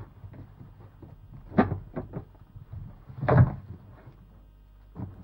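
Books being handled and set down on a floor mat: small knocks and rustles, with two thumps about a second and a half apart, the second the louder.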